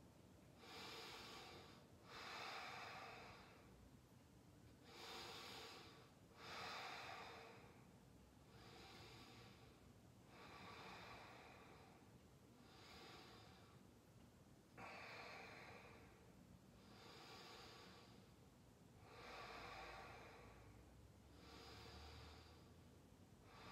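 Faint, slow, even breathing of a person lying at rest, soft in-and-out breaths repeating about every four seconds.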